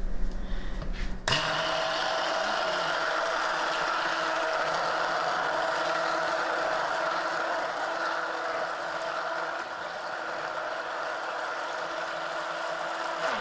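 Handheld stick blender running steadily as it blends raw eggs in a bowl. It starts about a second in, holds an even hum for about twelve seconds, and stops abruptly.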